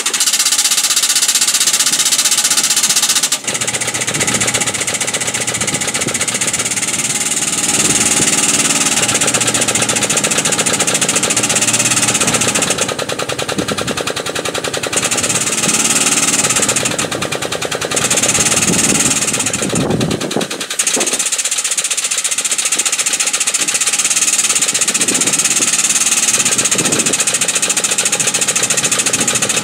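Pneumatic-driven hydraulic boat jacks pumping under air, their air motors chattering rapidly with a loud hiss of exhausting air as the boat is raised. The sound drops out briefly a couple of times.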